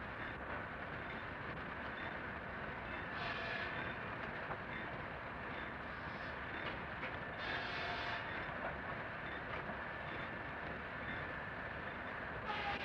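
Steam-powered sawmill machinery running with a steady, dense mechanical noise, swelling three times in brief, brighter surges.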